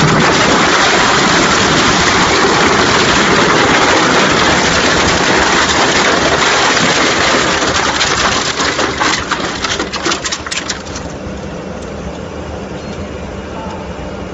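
DGI1500 single-shaft shredder tearing up trash bins: a loud, dense crunching and cracking that breaks into sharp separate cracks about eight seconds in, after which the machine runs on more quietly with a steady hum.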